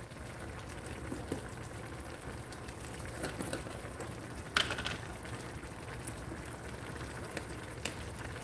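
Ground beef, tomato and bean mixture simmering in a nonstick braiser, a steady soft bubbling, with one short sharp click about halfway through.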